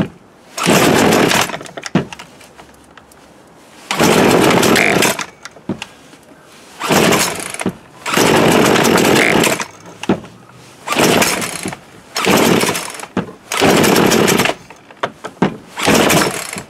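Poulan Pro PP4218A 42cc two-stroke chainsaw revved in short bursts about nine times, the throttle blipped and released so the engine drops back to a lower idle between each burst, with the chain spinning on the bar, as the carburettor is being tuned.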